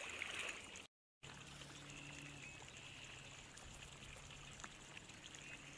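A small splash as a released crappie drops back into the pond. The sound cuts out for a moment about a second in, then faint, steady outdoor background hiss with a low hum.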